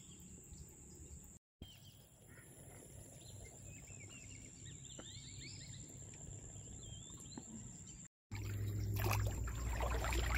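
Faint outdoor ambience: small birds chirping and a steady high tone over a low rumble. About eight seconds in, after a cut, it turns much louder with water splashing and sloshing close by.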